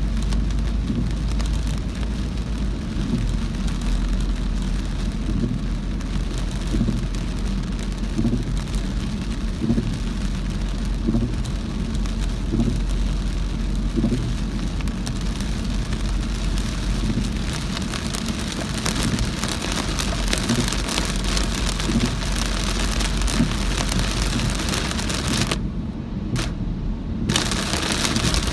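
Inside a car driving through heavy rain: a steady low rumble of engine and tyres under an even hiss of rain on the roof and windscreen, the rain growing louder toward the end. Near the end the rain hiss cuts out for about a second and a half while the low rumble carries on.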